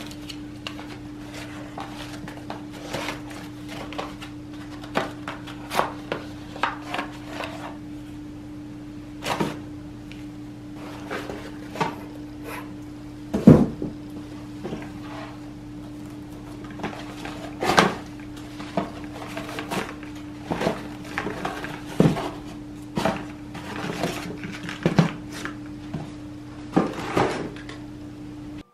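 Cardboard parcels being unpacked by hand: crumpled kraft packing paper rustling, packing tape peeled off a cardboard box, and scattered taps and knocks of the boxes and a box cutter, with one sharp knock about halfway through. A steady low hum runs underneath.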